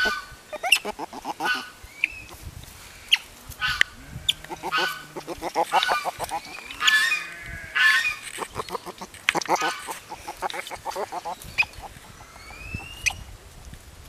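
Baby river otter making happy noises: quick runs of short, high squeaky calls, with a rising whistle near the end.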